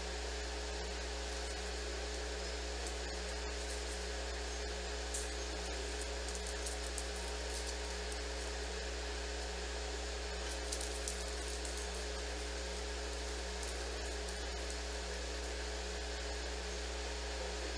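Steady electrical hum with hiss, a constant room tone, with a few faint taps about five seconds in and again near eleven seconds.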